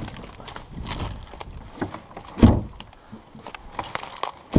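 Knocks and scrapes of hands handling an old boat hull lying in dry grass and ice. One heavy thump comes about two and a half seconds in, and another near the end.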